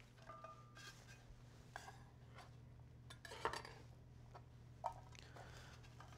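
Faint handling sounds at a plastic cutting board as trimmed asparagus spears are gathered up and a chef's knife is laid down: a few light taps and knocks, the loudest about three and a half seconds in, over a low steady hum.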